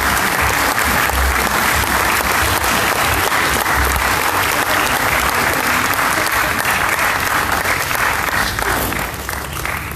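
A theatre audience applauding: loud, dense clapping that holds steady and begins to die away near the end.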